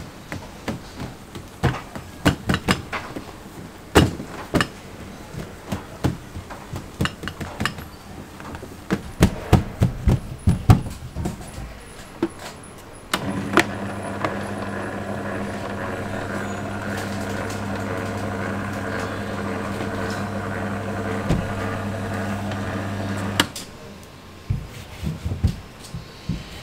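Dough being slapped, folded and pressed by hand on a stainless-steel counter, a run of sharp irregular knocks. About halfway through, the motor of an electric dough-rolling machine starts with a steady hum as the dough sheet passes through its rollers. It runs for about ten seconds, then cuts off, and a few more knocks follow.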